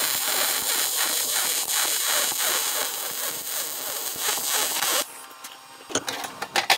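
Wire-feed welder arc crackling and hissing steadily as a bead is run on steel plate, cutting off about five seconds in. A few metal clanks follow as the ground clamp is moved on the plate, the loudest just before the end.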